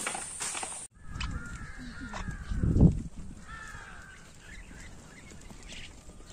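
Outdoor birds calling a few times, with short, bending, pitched calls. The sound drops out for an instant about a second in. A brief low rumble about two seconds in is the loudest moment.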